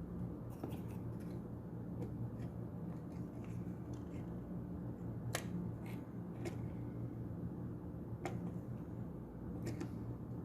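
Small sharp clicks and taps of soldering tools against a circuit board, about seven scattered through, over a steady low electrical hum.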